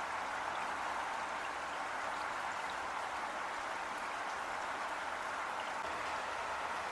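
Heavy rain falling steadily, an even hiss of many drops with no let-up.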